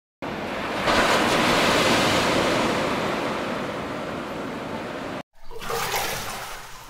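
Surf on the shore: an even rush of waves breaking and washing in, swelling about a second in and slowly easing. It cuts off about five seconds in, and a second, shorter rush of noise begins and fades away.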